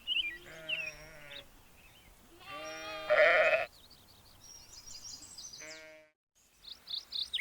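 Sheep bleating three times, the middle bleat the longest and loudest, with faint bird chirps between and near the end.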